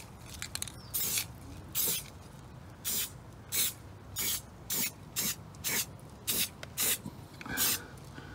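Aerosol spray can of Rust-Oleum primer sprayed in short hissing bursts, about eleven of them, each a fraction of a second long and roughly half a second apart, as primer is dusted onto an alloy wheel.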